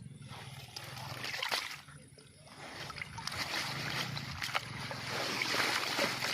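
Water splashing and sloshing irregularly as a fishing net is worked in the water, with many small sharp splashes, louder in the second half.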